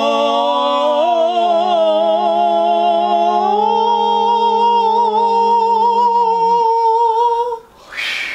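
Two men singing long held notes together in harmony, changing pitch a few times. They stop near the end, followed by a short breathy rush of noise.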